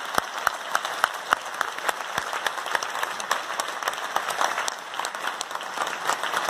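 Audience applauding in a large hall, a dense steady clatter of many hands, with a few sharper claps close by standing out in the first couple of seconds.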